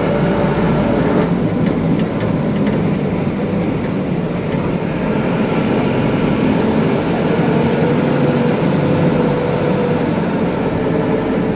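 A bus's engine running steadily as it drives along, heard from inside the driver's cab, with road noise and a few light rattles.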